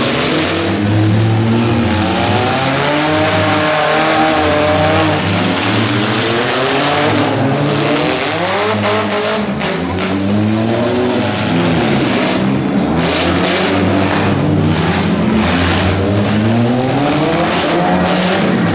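Several derby cars' engines revving up and down as they race on a dirt track, their pitches rising, falling and overlapping as the cars pass and slide through the turns.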